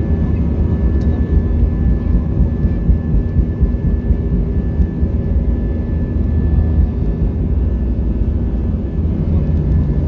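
Airbus A320's jet engines at takeoff thrust during the takeoff roll, heard inside the cabin over the wing: a loud, steady deep rumble with a thin steady high whine over it.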